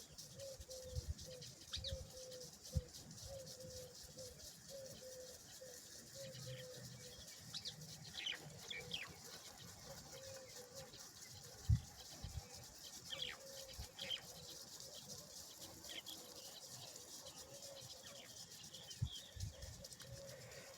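Faint bird calls: a steady run of short, low notes repeated two or three times a second, with a few brief, higher, downward-swept chirps. A dull knock now and then, the loudest about twelve seconds in.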